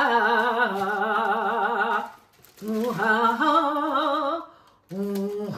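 A woman singing long held notes with a wide, wavering vibrato, unaccompanied, in three phrases broken by short pauses.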